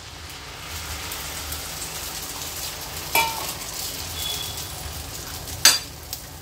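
Beaten egg mixture sizzling steadily in hot oil on a tawa as it starts to fry. A steel spoon spreading the egg clinks against the pan, once about three seconds in and more sharply near the end.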